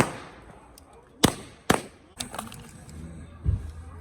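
Firecrackers going off outdoors in a string of sharp bangs: one at the start and two more loud ones a little over a second in, then smaller pops and a low thump near the end.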